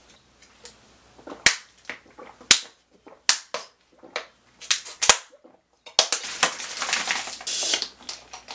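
Loud gulps from someone chugging a drink from a plastic bottle: sharp swallowing clicks about a second apart. From about six seconds in, a denser stretch of rustling and handling noise takes over.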